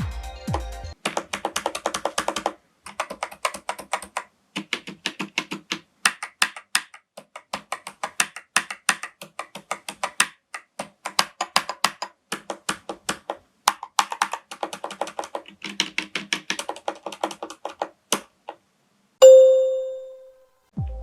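Fast typing on a Corsair K100 mechanical gaming keyboard, the keys clacking in quick runs with short pauses. Near the end the typing stops and a single loud bell-like chime rings out and fades.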